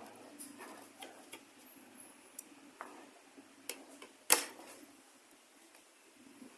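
Light clicks and taps of the opened plastic mosquito bat and its circuit board being handled, with one sharper click a little over four seconds in.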